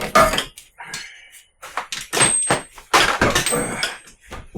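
A string of irregular knocks and clunks as an object is pulled and worked loose by hand. The loudest knocks come just after the start and again about three seconds in.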